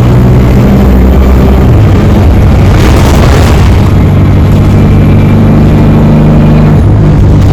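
ADL Enviro 200 single-deck bus heard from on board while under way: the engine and drivetrain run steadily, changing note about two seconds in and again near the end, with a faint high whine that the uploader puts down to the bus's unusual, electric-sounding axle.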